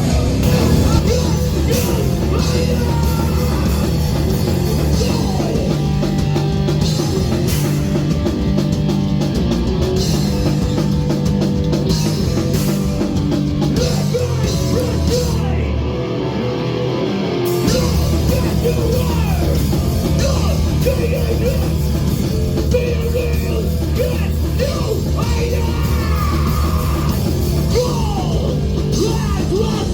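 Loud rock music. About halfway through, the bass and drums drop out for a couple of seconds, then the full band comes back in.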